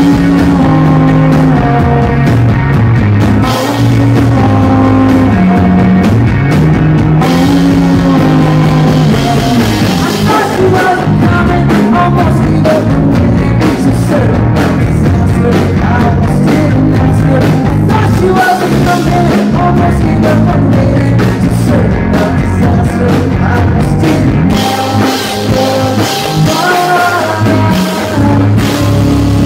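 A rock band playing loudly live, with a voice singing over guitars.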